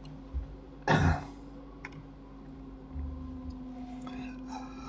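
Quiet desk room tone with a steady low electrical hum, a short puff of noise about a second in, and a few faint clicks from a computer keyboard and mouse.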